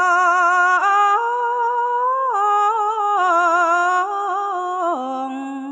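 A woman chanting Khmer smot without accompaniment, a melismatic Buddhist verse recitation. Her voice holds long notes with a quick wavering vibrato and steps up and down in pitch, dropping to a lower held note about five seconds in.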